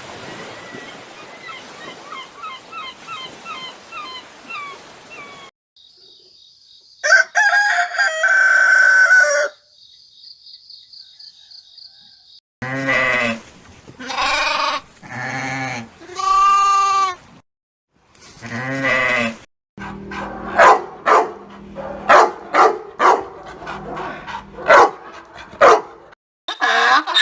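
A run of farm-animal calls: faint chirping over a hiss, then a loud crowing call, then five loud bleats. After the bleats comes a fast series of sharp pulses.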